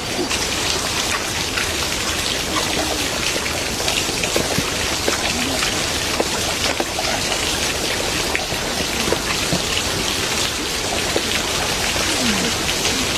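Steady rain pattering on surfaces: an even hiss full of small drop taps.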